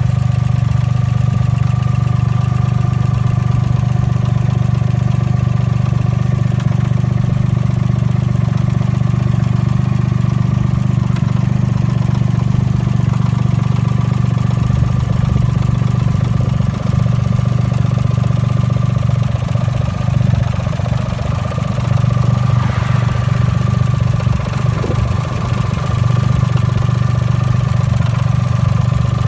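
Suzuki Cappuccino's engine idling steadily, running smoothly, with a thin steady whine above the low engine note.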